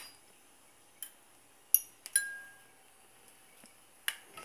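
A metal spoon clinking against a glass baking dish: about four light, separate taps with quiet between, one of them ringing briefly.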